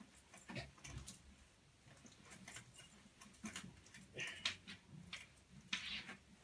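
Whiteboard being wiped with a duster: a series of faint rubbing strokes with small clicks and knocks, with two short louder swipes about four and six seconds in.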